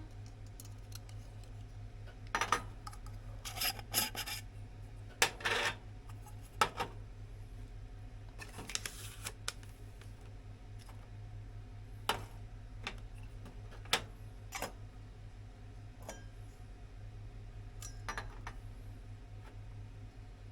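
Light metal parts of a small campfire stand being handled: irregular clinks and short scrapes of metal on metal, a dozen or so scattered through, over a steady low hum.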